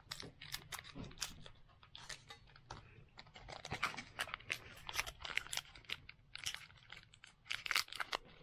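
Foil Pokémon booster pack wrapper crinkling and tearing as it is opened by hand: a run of irregular sharp crackles.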